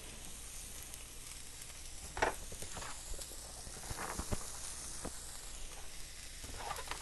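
Chopped onion and celery sizzling faintly in hot oil in a stainless steel skillet. A few light knocks about two seconds in and again around four seconds in, as the pieces are slid off a flexible plastic cutting board into the pan.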